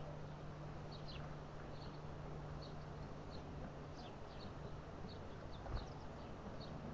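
Small songbirds giving short, high chip calls, several scattered through each second, some dropping in pitch, over a faint steady low hum.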